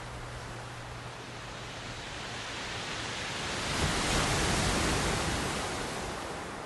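Outdoor rushing of wind and ocean surf, a steady hiss that swells up about halfway through and eases off again.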